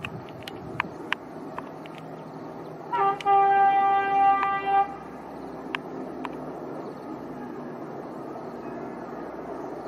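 A diesel passenger train's horn gives one long steady blast of about two seconds, starting about three seconds in, heard from high above the line over steady background noise.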